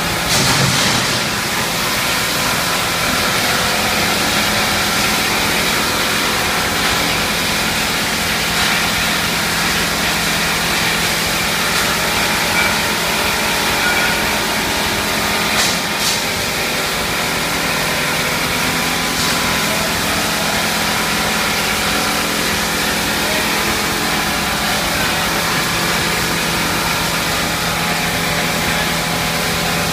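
Double-cavity PVC pipe production line running: a steady machine drone with a constant low hum from its motors. Two brief hisses come through, one about half a second in and one about 16 seconds in.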